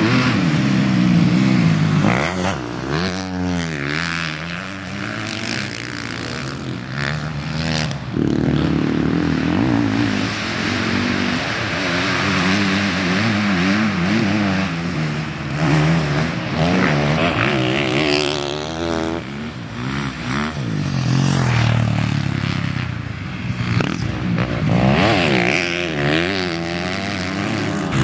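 Honda CRF four-stroke single-cylinder motocross engine revving hard and backing off over and over as the bike is ridden around a dirt track. Its note climbs steeply, then drops away, many times through gear changes and throttle shut-offs.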